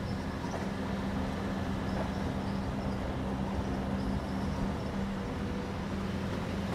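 Truck driving on a dirt road while towing a boat: a steady drone of engine and tyre noise with a constant low hum.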